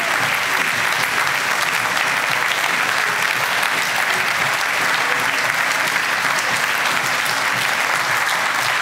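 Large theatre audience applauding: dense, steady clapping from a full house.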